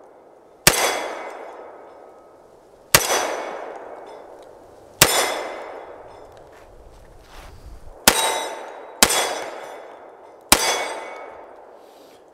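Six shots from a Hi-Point JXP 10mm pistol, fired at an irregular pace one to three seconds apart, each sharp report trailing off in an echo.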